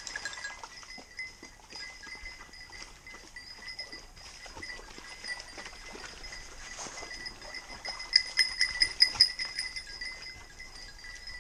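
Bells on hunting dogs' collars ringing as the hounds move about on stones and in water, with a run of quick, louder jingling about eight to nine and a half seconds in.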